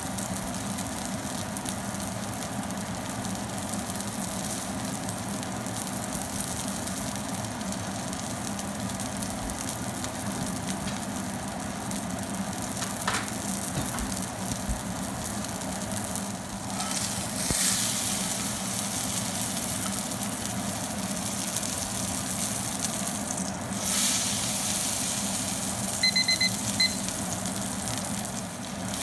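A5 Wagyu steak searing in a cast-iron skillet: a steady sizzle of the fat frying, which swells louder twice in the second half. Near the end, a few quick electronic beeps.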